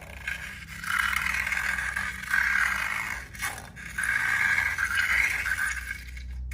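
Slime being mixed and scraped in a container: two long scraping passes, the first starting about a second in and the second about four seconds in, with a short pause between them.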